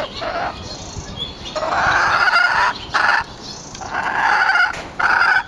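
Domestic hen complaining in a string of about five drawn-out calls, the longest lasting about a second.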